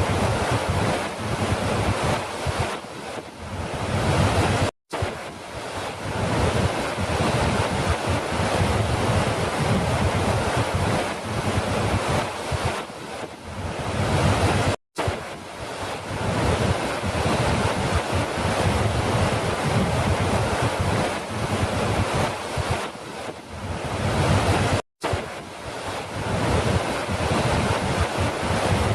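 Falling water rushing steadily, a continuous hiss and rumble with no distinct splashes. It is a loop that drops out to silence for an instant three times, about every ten seconds.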